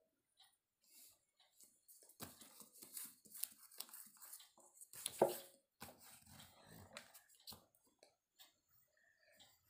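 A sheet of paper being handled and shifted on a table: rustling and small knocks over a few seconds, with one brief, louder pitched sound about five seconds in.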